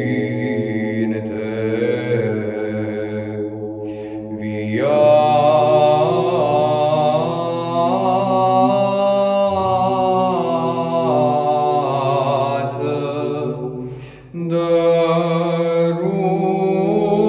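Solo male cantor singing Byzantine chant in long, ornamented melodic phrases over a low held drone. The drone drops to a lower note about halfway through. The voice rises and gets louder about five seconds in, then breaks off briefly for a breath near the end before going on.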